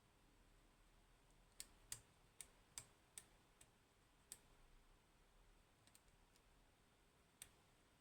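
Faint, sharp clicks of a lock pick working the pins inside a 15-pin Codkey Locksys lock: a quick run of about seven clicks in the first half, then a few scattered ones, the last near the end.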